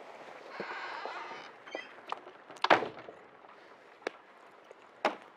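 A door being opened and pulled shut, with rustling as it opens and a sharp bang as it closes a little under three seconds in. A lighter click follows about five seconds in.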